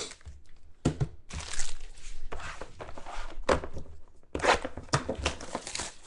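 Foil trading-card pack wrapper being crinkled and torn open by hand, with irregular rustling and a few sharp knocks.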